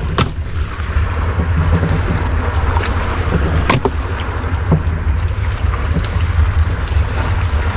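Steady low rumble with a few sharp clicks and knocks as a wire landing net and gear are handled on a small fishing boat's deck.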